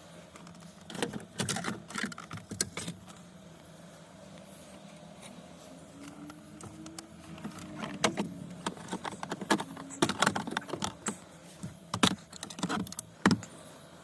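Irregular clicks and rattles of small hard parts being handled, in two bursts, over a steady low hum.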